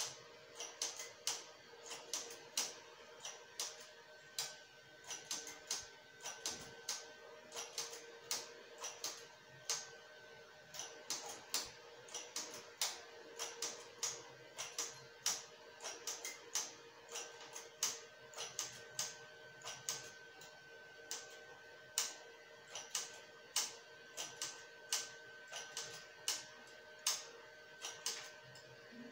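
Metal needles and a hand tool clicking on a knitting machine's needle bed as stitches are cast off by hand, two or three sharp, irregular clicks a second, over a faint steady hum.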